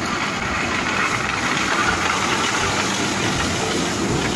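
Engine of a miniature ride-on train running steadily as the locomotive pulls its passenger carriages along.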